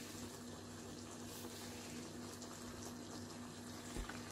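Creamy sauce simmering gently in a pan around chicken meatballs, a soft steady bubbling over a low steady hum. A small thump comes about four seconds in.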